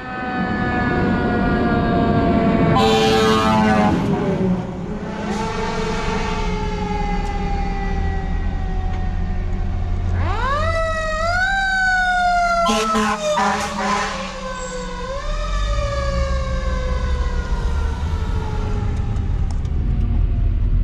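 Fire engine siren wailing: its pitch slides slowly down, winds up sharply about halfway through, falls, then rises again. There are short horn blasts near the start and again about halfway, over the low road and engine noise of the moving car the siren is heard from.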